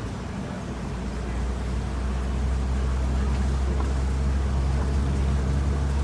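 Safari truck's engine running steadily as it drives along, heard from aboard, with a low hum that grows louder over the first two seconds.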